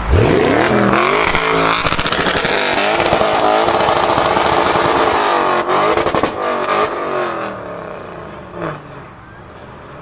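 Audi RS6 C7's twin-turbo V8, running decat downpipes and a Milltek exhaust, accelerating hard from a pull-away: the revs climb steeply right at the start and the engine stays loud for several seconds. Near the middle it lifts off with a burst of sharp exhaust crackles, then the sound fades as the car drives away.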